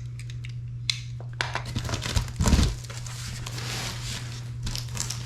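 Packaging being crinkled and rustled as a box of clothes is opened and unpacked, with a low thump about halfway through, over a steady low hum.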